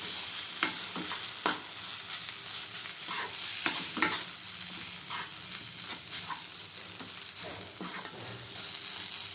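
Coarse dry-fruit masala paste sizzling gently in ghee in a kadhai on low heat. It is stirred slowly, the utensil scraping and clicking against the pan at irregular intervals, about once a second.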